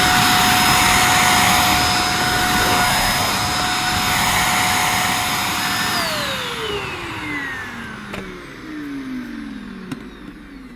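EGL 600-watt handheld mains vacuum cleaner running with a steady high whine, then switched off about six seconds in, its motor winding down with falling pitch over the next few seconds. A couple of faint clicks as it runs down.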